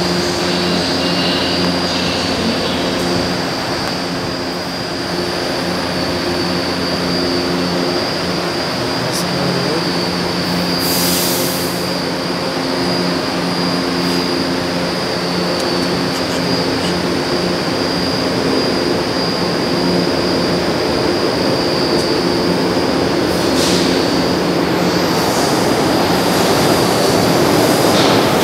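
São Paulo Metro Line 1 trains at an underground platform. A standing train gives a steady electric hum with a high whine, and there is a brief hiss about eleven seconds in. Near the end, the rumble of another train grows as it comes in through the tunnel.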